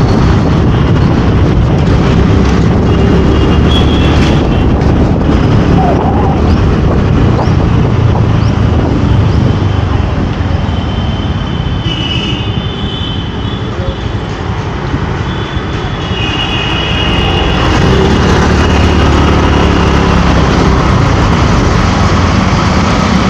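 Steady wind and road rumble while riding a scooter through city traffic, heavy in the low end on a helmet-mounted microphone. The rumble eases for a few seconds midway, then builds again.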